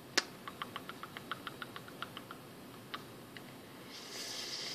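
A sharp click, then a quick, even run of light clicks at about six a second, followed by two more single clicks.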